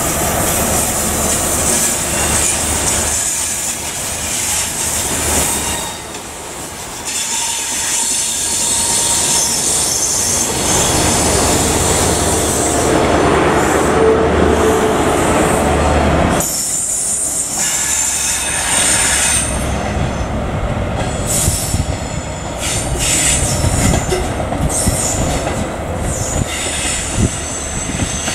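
Class 43 HST diesel train running on curved track, its engine rumbling under high-pitched wheel-flange squeal and the click of wheels over rail joints. About halfway through, a second HST power car coming slowly round a curve takes over, its wheels again squealing.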